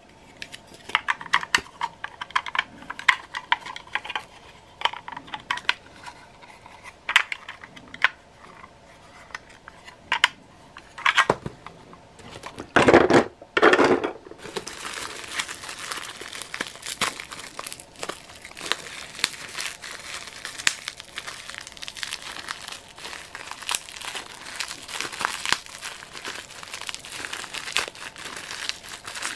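Hard plastic toy parts clicking as they are handled, then newspaper and bubble wrap rustling and crinkling as a wrapped toy is unwrapped. Two loud bursts of rustling come about halfway, and after them the crinkling runs on with many small crackles.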